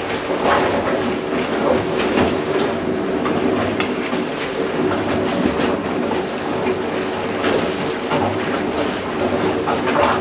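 The electric motor of a homemade 55-gallon barrel syrup mixer runs with a steady hum while granulated sugar is poured from a bucket into the water in the barrel, making a continuous hiss with scattered clicks and crackles. This is sugar being mixed into water for 2:1 sugar syrup.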